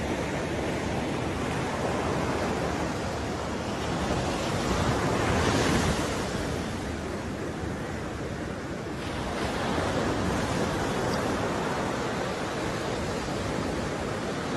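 Sea waves breaking and washing up a sandy beach, with wind buffeting the microphone. One wave swells loudest about five to six seconds in.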